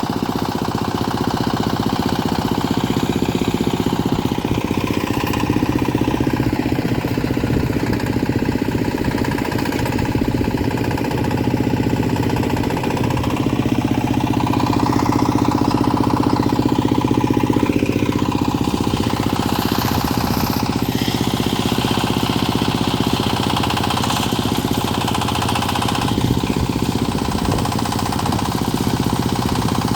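Mini backhoe loader's engine running steadily with a fast, even knocking beat, while a whine rises and falls through the middle as the machine works.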